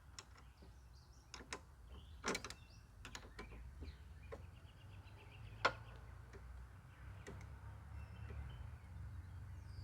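Scattered light clicks and knocks of hand work on a mower's blade-engagement cable and its linkage, the sharpest about two seconds in and again near the middle, over a faint low hum.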